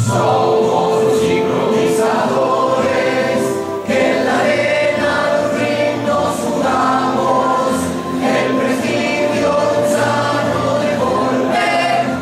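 Choral music: a choir singing held chords that change every second or two.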